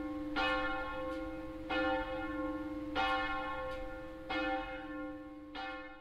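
A single church bell tolling, struck five times at an even pace of about one stroke every 1.3 seconds, its hum ringing on between strokes.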